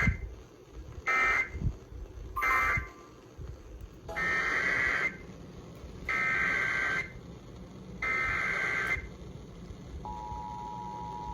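Emergency Alert System signalling: three short buzzy SAME end-of-message data bursts close the previous warning, then three longer SAME header bursts announce the next alert. About ten seconds in, the steady two-tone EAS attention signal begins.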